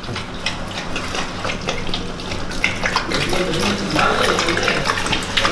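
Pit bull lapping milk from a plastic bowl: a quick, steady run of wet laps and splashes.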